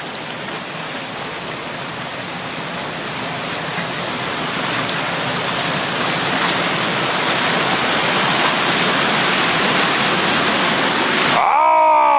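Whitewater rapids rushing, growing steadily louder. Near the end the rushing cuts off suddenly and a pitched tone with overtones comes in, sliding down in pitch.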